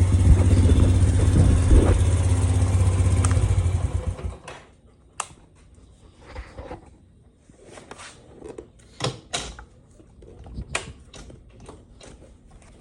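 Honda TRX90X ATV's small single-cylinder four-stroke engine running at a steady speed, then stopping about four seconds in. Scattered faint knocks and clicks follow.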